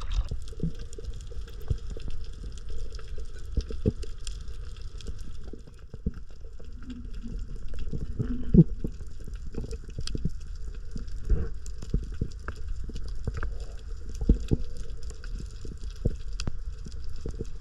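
Underwater sound: a low rumble of moving water, with many small irregular clicks and crackles throughout.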